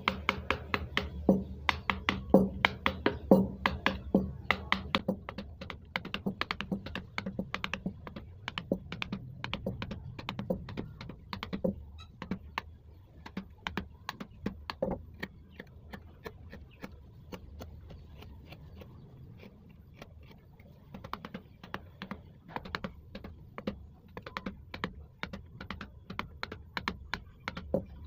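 Wooden mallet tapping a carving chisel into teak in quick series of sharp knocks, several a second. The knocks are dense at first, thin out midway, and pick up again near the end.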